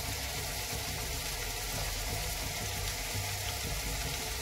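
Chopped tomatoes and onions frying in oil in a kadhai on a low flame: a steady, gentle sizzle.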